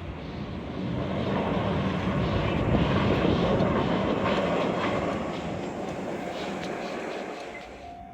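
Keihan 600 series two-car electric train passing close by, its running noise swelling to a peak about three seconds in and then fading, with a string of sharp wheel clicks over the rails.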